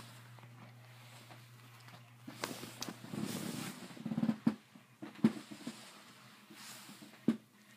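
Rustling and scraping of clothing and a handheld phone as a kitten claws its way up a shirt, with several sharp knocks, the loudest two about five and seven seconds in. A steady low hum runs underneath for the first few seconds.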